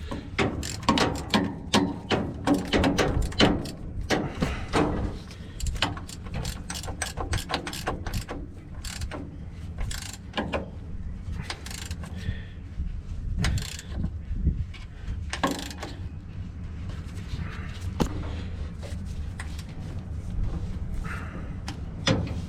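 Ratchet wrench clicking in quick bursts as a nut is turned on a bulldozer fitting. The clicks come thick and fast for the first few seconds, then in scattered strokes.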